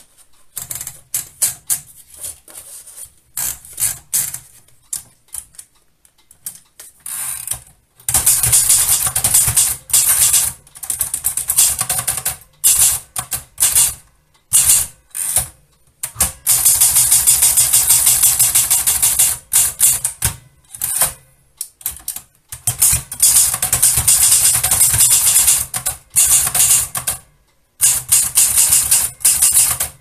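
1937 Adler Modell 32 portable typewriter: scattered clicks as paper is fed in and the platen knob turned. Then, about eight seconds in, fast typing begins, a rapid run of type-bar strikes against its rock-hard platen, broken by a few short pauses.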